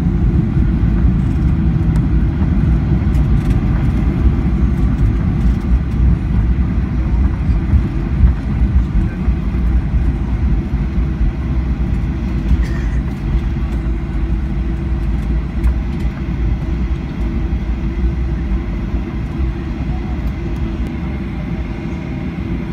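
Cabin noise inside a Boeing 737-800 rolling on the ground after landing: a steady low rumble from the wheels and CFM56-7B engines, gradually getting quieter as the aircraft slows.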